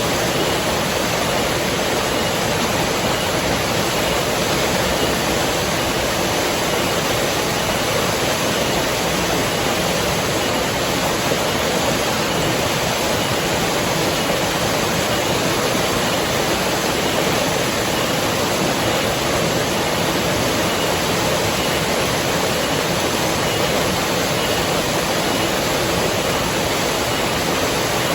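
River water rushing steadily: an even, unchanging wash of water noise with no distinct splashes or other events.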